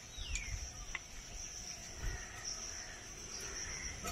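Faint, steady high-pitched chirring of insects, with a short falling whistle near the start and a single light click about a second in.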